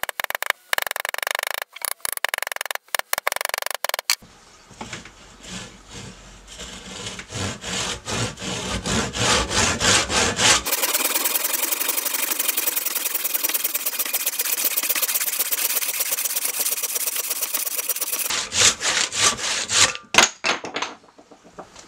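A hammer knocking a wooden wedge into the split top of a mattock's wooden handle for the first few seconds, then a handsaw cutting through the protruding handle end and wedge in steady back-and-forth strokes, trimming them flush with the head.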